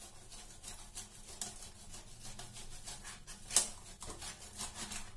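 Paneer being grated on the coarse side of a stainless steel box grater: a run of short, repeated scraping strokes, with one louder stroke about three and a half seconds in.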